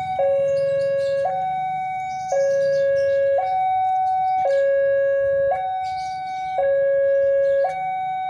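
Railway level-crossing warning alarm sounding its two-tone signal, stepping between a lower and a higher tone about once a second.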